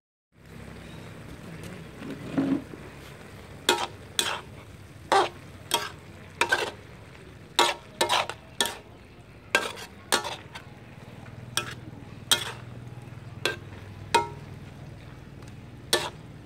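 Metal spatula scraping and knocking against a metal wok as cabbage and pork are stir-fried, about fifteen sharp strokes, roughly one a second, over a steady sizzle from the pan.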